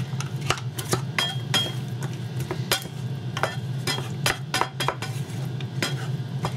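A wooden spatula stirring and scraping a mix of fried mushrooms, onions and crushed crispbread in a frying pan, with irregular knocks and clicks against the pan. A steady low hum runs underneath.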